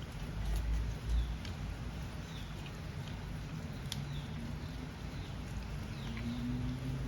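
Eating sounds: faint clicks and light scrapes of utensils, with a couple of low thuds in the first second, over a steady low hum.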